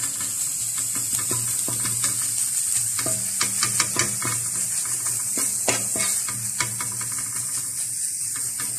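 Chopped onion, cabbage and chicken filling sizzling in oil on a flat tawa griddle, with a steady hiss and repeated clicks and scrapes of a wooden spatula against the griddle as it is stirred.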